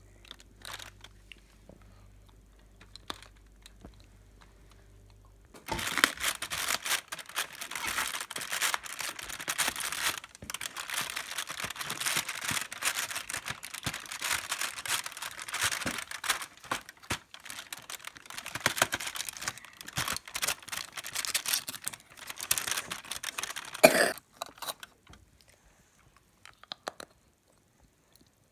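Cardboard advent calendar being handled and its door torn open: a long run of dense crinkling, rustling and tearing full of small crackles, starting a few seconds in after a quiet start. A single short loud burst comes near the end.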